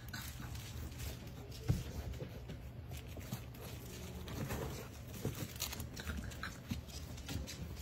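Puppies moving about on a tile floor and blanket: scattered soft scratching, tapping and rustling, with a dull thump about two seconds in.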